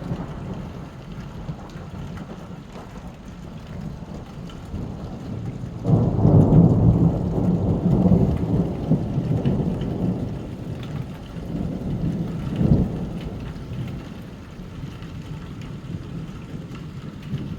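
Thunder in a severe thunderstorm: a sudden loud rumble about six seconds in that rolls on for several seconds and fades, then a shorter clap a few seconds later, over steady heavy rain.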